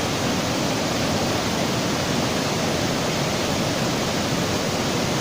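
Waterfall water rushing steadily, a loud even noise.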